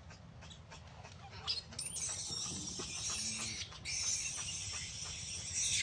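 Baby long-tailed macaque screaming: two long, shrill screams separated by a brief break, the first starting about two seconds in after a few faint taps.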